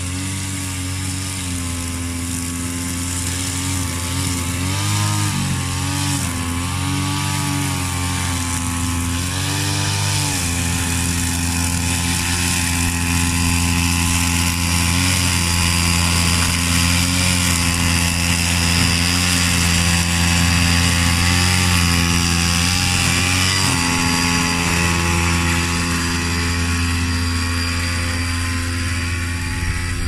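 A remote-control lawn mower's 35cc two-stroke petrol engine running fast as it cuts grass. Its pitch wavers up and down for the first ten seconds or so, then mostly holds steady, with a short dip a little past the twenty-second mark.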